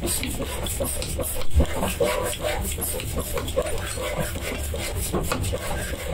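Sledgehammer blows on a red-hot steel hammer head held on an anvil during hand forging, with one heavy thump about one and a half seconds in. Animal-like calls sound in the background.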